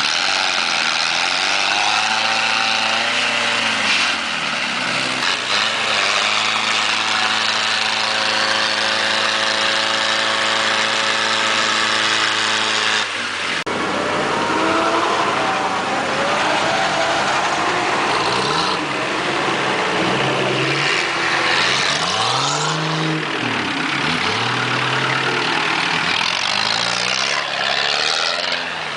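A 4x4's engine running hard, holding a fairly steady pitch for the first half. After an abrupt break about halfway through, it revs up and down over and over.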